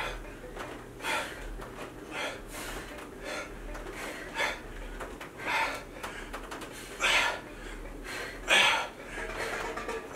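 A person breathing hard through a set of push-ups: sharp, noisy exhalations roughly once a second, the two loudest near the end.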